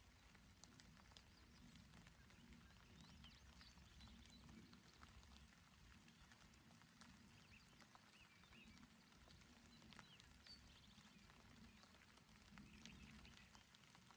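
Faint, gentle rain falling on a mountain meadow, with scattered soft drop ticks over a low steady rumble and a few faint high chirps now and then.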